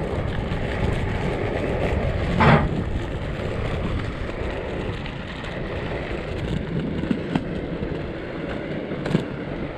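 Three-wheel inline skates rolling over a paved path: a steady rolling noise, with one brief loud sound about two and a half seconds in.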